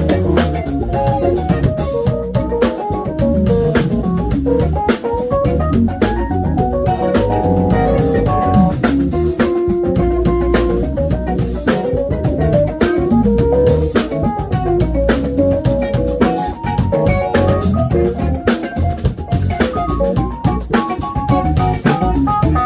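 Live jazz band playing an instrumental with a steady groove from drum kit and electric bass under keyboards and a melodic lead line, which sounds like guitar.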